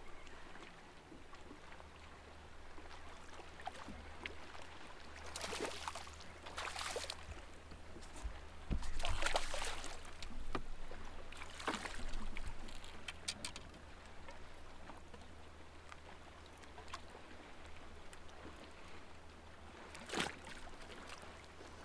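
Water sloshing and splashing beside a boat as a hooked smallmouth bass is fought to the side and landed: several short splashes, the loudest about nine seconds in, over a steady low rumble and lapping water.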